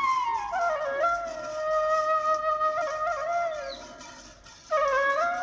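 Background instrumental music: a single slow melodic line of held notes with glides between them, which fades away about four seconds in and comes back a moment later.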